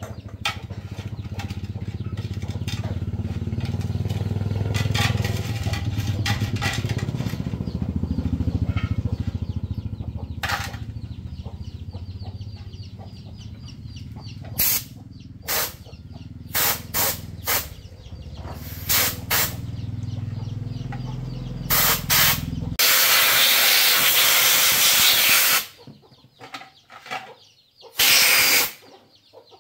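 Compressed-air blow gun blowing off small brush-cutter engine parts: from about halfway, a run of short blasts, then a longer blast of about three seconds, and one more short blast near the end. A steady low hum runs underneath until the long blast.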